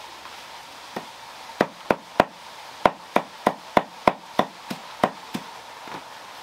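Knife chopping leafy greens on a wooden chopping block: about a dozen sharp chops at roughly three a second, starting about a second in and stopping about a second before the end.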